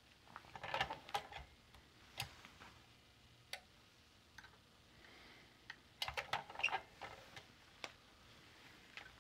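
Crinkly rustling of Halyard H600 mask fabric being handled and lined up on an impulse heat sealer, in two bursts about five seconds apart, with a few single sharp clicks and taps from the sealer's arm and the metal positioning tool.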